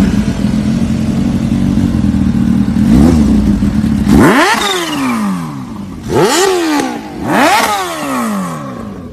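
Sport motorcycle engines idling, then revved hard three times, each rev climbing sharply in pitch and falling back to idle.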